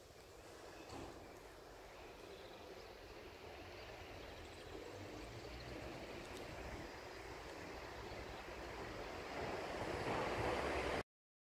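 Steady street ambience, a noise without clear tones that slowly grows louder and then cuts off abruptly near the end.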